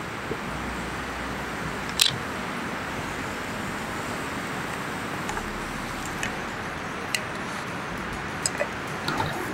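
Steady hiss of a UST Trekker canister camp stove burning under the pot, with a few sharp clicks of a metal spoon against a glass jar, the loudest about two seconds in and several more near the end.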